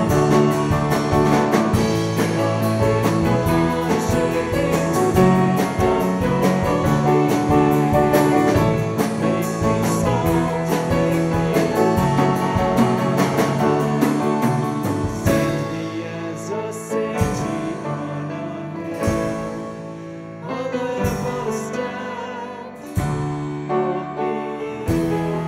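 Worship band music with guitar and piano, full and dense for the first half, then thinning out to quieter, sparser playing.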